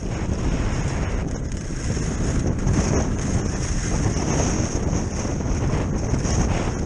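Wind buffeting the microphone of a body-worn camera on a kite skier moving fast over snow: a loud, steady rush heaviest in the lows, with a steady high hiss above it.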